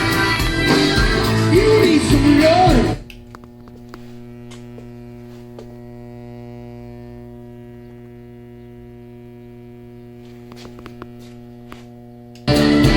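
Rock music with singing plays, then stops about three seconds in, leaving an Emotiva amplifier's steady mains hum: a low buzz with a stack of overtones, the unwanted noise the amp puts out. The music comes back in near the end.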